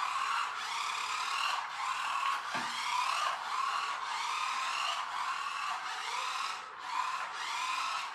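Small electric motor of a toy whirring, its pitch rising in quick repeated surges with short dips between them, as it is worked from the repaired toy-grade radio transmitter: the transmitter is working.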